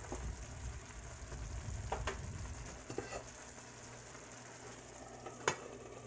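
Tomato rice sizzling in a skillet, its liquid cooked off, while a slotted spoon stirs and scrapes through it with a couple of light taps. About five and a half seconds in comes one sharp clack as an enamel lid is set on the pan.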